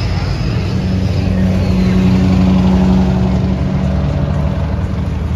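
Engine of a vehicle driving past in street traffic, getting louder for a couple of seconds and then fading as it goes by.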